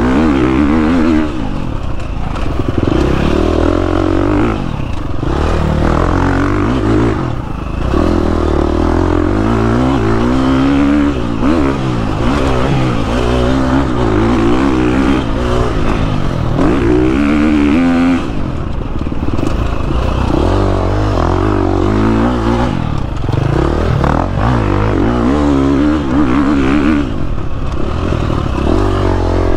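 KTM 350 XC-F dirt bike's four-stroke single-cylinder engine under riding, its revs climbing and dropping again and again as the throttle is opened and shut.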